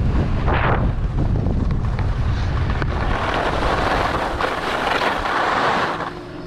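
Wind buffeting the helmet-camera microphone as the skier runs downhill, with the skis hissing and scraping over packed snow. The scraping gets louder from about three seconds in, and the wind rumble drops away near the end as the skier slows.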